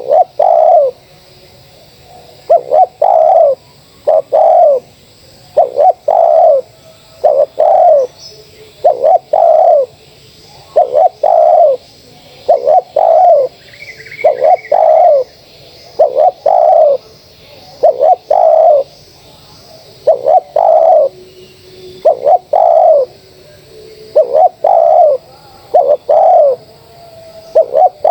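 Spotted doves cooing: a steady run of loud, low coo notes, one or two a second with short pauses between phrases. Brief higher chirping from another bird is heard about halfway through.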